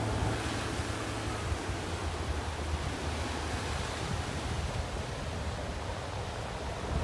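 Pacific surf breaking and washing up a flat sandy beach: a steady rushing wash of waves, with a low rumble of wind on the microphone that is strongest in the first second and a half.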